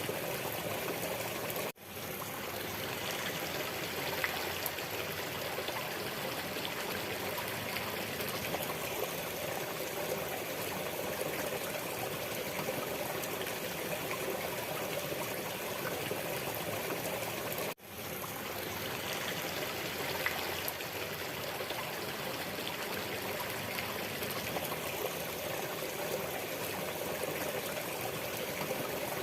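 Waterfall water rushing in a steady, even wash. It cuts out abruptly twice, about 2 seconds and 18 seconds in, and fades straight back up.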